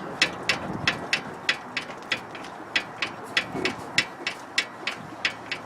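Worn front sway bar link on a 2010 Buick Enclave clicking as the car body is rocked up and down: a fast train of sharp clicks, about three or four a second, the sign of bad sway bar links.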